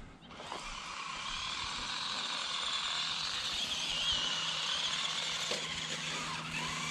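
Toy remote control car's small electric motor and plastic gearbox whirring steadily as the car drives, with a high tone that wavers a little in pitch.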